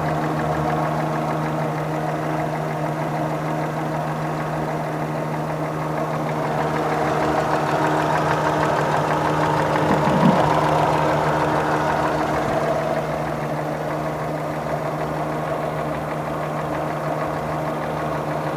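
Car engine idling steadily with a knock that the owner is trying to trace and cannot identify. It grows louder for several seconds in the middle, with one brief sharp sound about ten seconds in.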